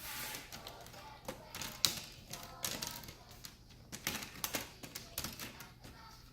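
Plastic laptop screen bezel being pressed back on, a string of irregular clicks and taps as its clips snap into place.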